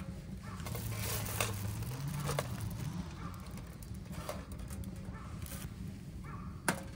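Cooking at a frying pan: about five light clicks and knocks of utensils on the pan, spread over several seconds, over a low steady hum.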